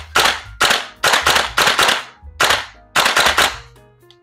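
VFC HK416A5 gas blowback airsoft rifle firing on full auto in short rapid bursts of a few shots each, the bolt slamming back with every shot. The firing stops about three and a half seconds in, leaving music underneath.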